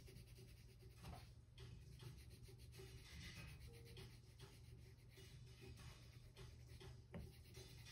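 Faint scratching of a black Crayola colored pencil on paper, in many short back-and-forth strokes while an area is shaded in.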